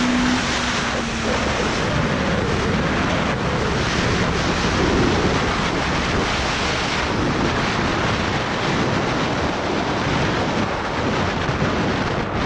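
Heavy, steady wind rush buffeting the microphone in an open-cockpit Ariel Atom at speed, with the car's engine faint underneath.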